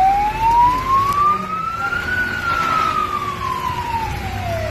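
A siren wailing: one slow cycle, its pitch rising steadily for about two seconds, then falling back down toward the end.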